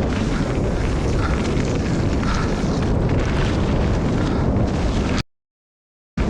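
Wind buffeting the microphone, with the rumble and rattle of a mountain bike descending a muddy trail at speed. About five seconds in the sound cuts out to dead silence for about a second, then comes back.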